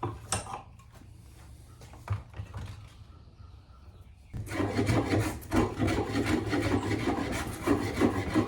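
Quick back-and-forth rasping strokes of a tool working the wooden sole of an antique jack plane, taking down a slight bow in the middle to flatten it. The strokes start about four seconds in, after a quieter stretch with a single knock.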